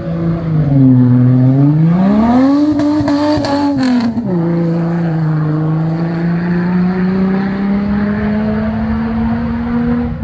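Hill-climb car's engine accelerating hard up the course. The revs sag briefly, then climb and hold high, drop sharply at a gear change about four seconds in, and rise steadily again in the next gear.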